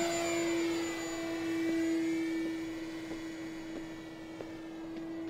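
Electric motor and propeller of a Tower Hobbies ASW 28 powered RC glider running after a hand launch: a steady high whine that fades a little as the glider climbs away.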